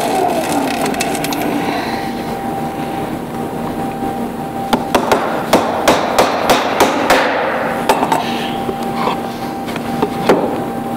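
A power tool's motor spinning down at the start, its pitch falling, then a run of about a dozen sharp knocks on wood, two or three a second, with one more near the end.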